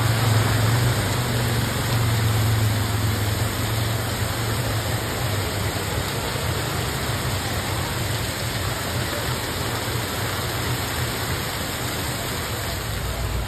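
Heavy monsoon rain pouring down, with a steady low hum underneath, strongest in the first few seconds.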